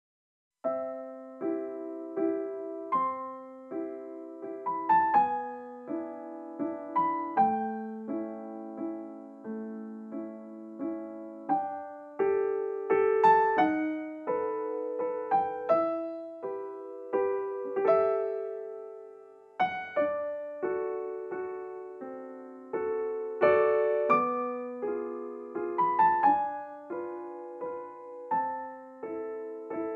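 Background piano music, single notes and chords, that begins about half a second in after a brief silence.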